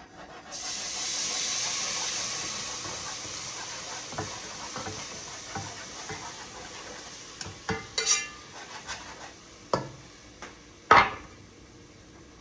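Food from a skillet poured into a hot pot sizzles and hisses, starting about half a second in and fading slowly over several seconds. Then come a few sharp metal clanks of the cookware, the loudest near the end.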